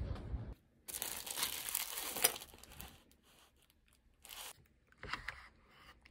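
A low rumble cuts off half a second in. Then a plastic food packet is torn open and crinkled for about two seconds, followed by a few brief scrapes and clicks of a spoon in a disposable cup.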